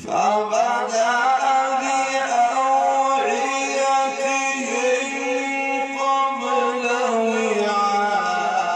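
A man reciting the Quran in a drawn-out melodic chant, his voice coming in abruptly after a pause and holding long notes with ornamented turns.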